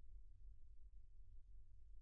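Near silence: faint, steady low room hum.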